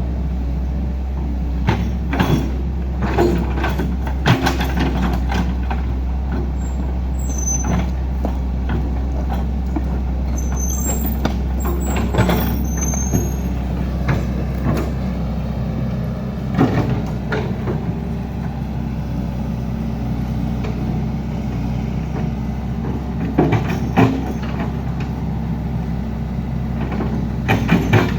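Heavy diesel engine running steadily, with repeated knocks and clanks of machinery and brief high squeals around the middle.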